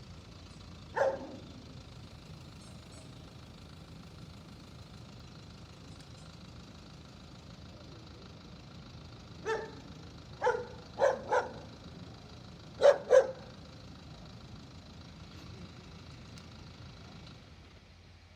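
Dog barking: a single bark about a second in, then a run of six short barks, mostly in pairs, between about 9 and 13 seconds, over a steady low rumble.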